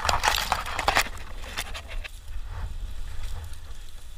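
Dry grass stalks and leaves rustling and crackling close to the microphone as a climber pushes through them, busy for the first second or so, then thinning to a few scattered crackles.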